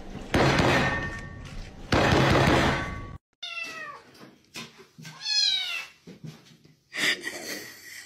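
A loud rustling scuffle for about three seconds, then a cat meowing several times, each meow sliding down in pitch, with a short noisy burst near the end.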